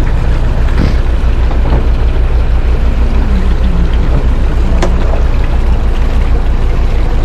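A boat engine idling with a steady low throb, plus a single sharp click about five seconds in.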